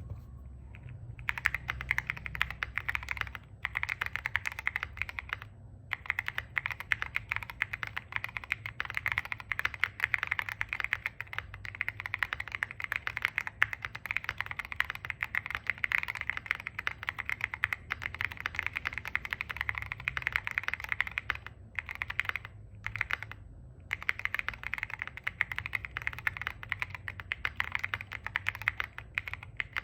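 Continuous typing on a QK65 mechanical keyboard fitted with Holy Panda Pro tactile switches, a POM plate and CAT-profile keycaps: a dense, thocky clatter of rapid keystrokes that starts about a second in, broken by a few short pauses.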